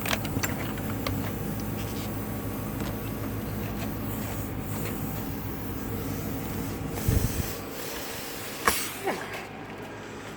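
Air hissing out of a punctured car tyre over a steady low hum, with a thump and a sharp knock late on; the hiss thins out near the end.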